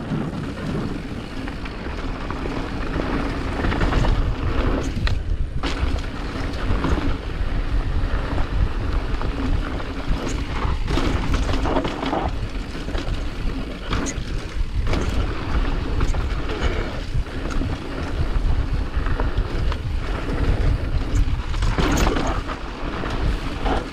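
Steady rushing wind noise on the microphone, broken by many short knocks and rattles.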